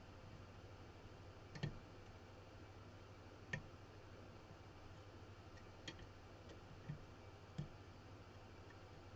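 Faint, scattered clicks of a hook pick working the pins of a sidebar lock cylinder, about five separate clicks a second or two apart, over a low steady hum.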